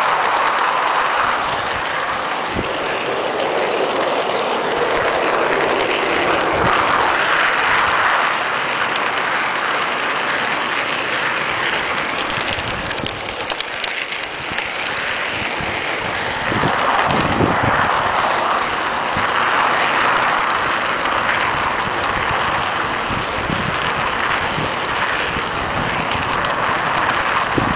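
Garden-scale model train running along its track, heard from on board: a steady rolling rattle of wheels on rail that swells and eases, with a few low knocks in the second half.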